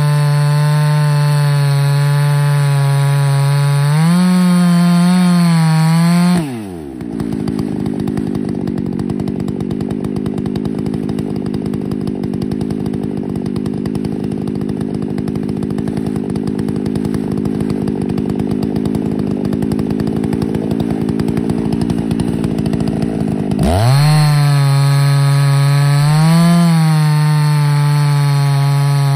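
Ported Husqvarna 288XP two-stroke chainsaw on an Alaskan mill running at full throttle through a white oak log, its pitch lifting briefly about four seconds in. At about six seconds the throttle is let off and the engine drops to idle for roughly 17 seconds, then revs sharply back up to full speed and carries on cutting to the end.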